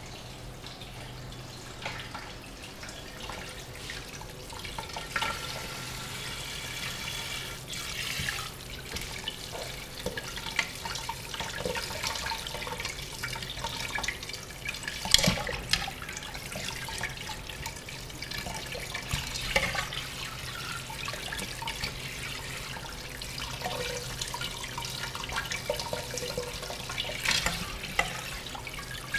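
Kitchen tap spraying into an aluminium pot in a stainless steel sink while chicken pieces are rinsed and rubbed by hand, water splashing and sloshing. There are scattered small clinks and one sharp knock about halfway through.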